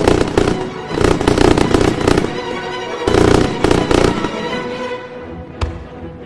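Fireworks bursting in rapid clusters of sharp bangs over music. The bangs thin out after about four seconds, leaving the music with one last sharp crack near the end.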